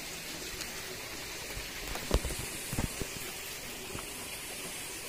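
Steady rushing of a small river, with a few sharp knocks about two seconds in.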